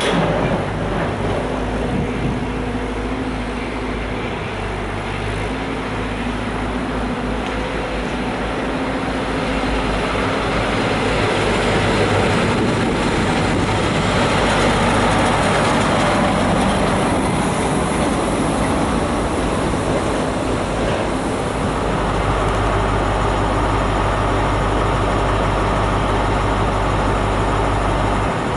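InterCity 125 HST arriving at a platform: a diesel power-car engine drone as it approaches, then the louder rumble of the power car and coaches running past. About three-quarters of the way through this settles into the steady low hum of the standing power car's diesel engine idling.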